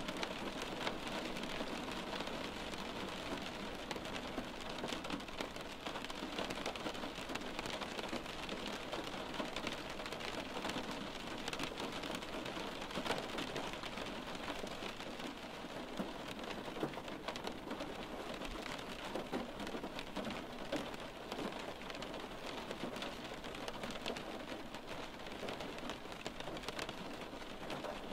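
Steady rain on a windowpane, many small raindrops tapping against the glass.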